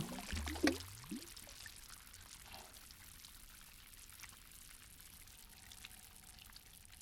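Water gurgling and splashing that dies away within the first second or so. Then faint trickling with scattered small drips.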